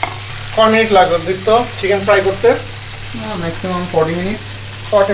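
Chicken drumsticks deep-frying in hot oil: a steady sizzle and bubbling while they are turned in the pan. A person's voice sounds over it in several short stretches.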